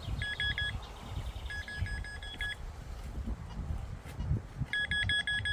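Metal detector beeping in three bursts of rapid pulsed tones, near the start, around two seconds in and at the end, signalling metal close by. A low rumble runs underneath.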